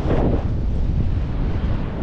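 Wind buffeting the microphone: a loud, heavy rumble with a stronger gust at the start.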